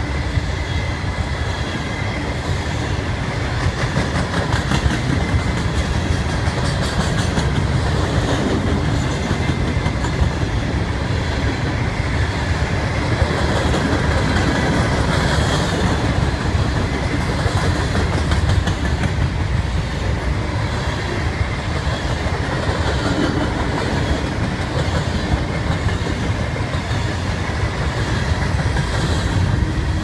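A string of Herzog open-top freight cars rolling past close by: a steady rumble of steel wheels on rail, with clickety-clack as the trucks cross rail joints.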